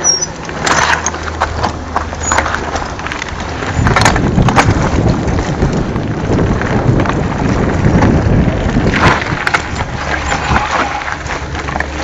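Mountain bikes rolling down a rocky dirt trail: tyres crunching over loose stones and dirt, with many small rattles and knocks from the bikes and wind rumble on the microphone. It gets louder and rougher from about four seconds in.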